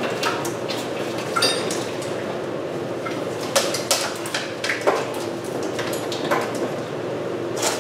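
Irregular metallic clinks and knocks of tools and parts as someone works by hand in a car's engine bay, one of them ringing briefly about a second and a half in, over a steady low hum.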